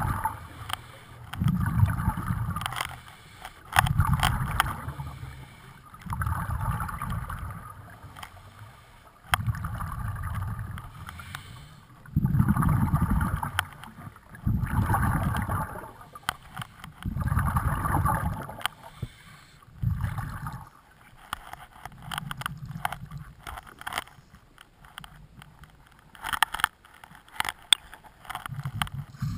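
Scuba regulator exhaust bubbles from a diver breathing underwater: a gurgling rush of bubbles about every two and a half seconds, each lasting about a second, turning weaker after about twenty seconds. Near the end come a few sharp clicks.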